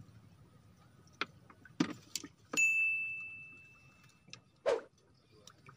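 A few clicks and knocks from the fishing reels and rod holders being handled, then, about two and a half seconds in, a single clear metallic ding that rings on and fades over about a second and a half; another knock follows near the end.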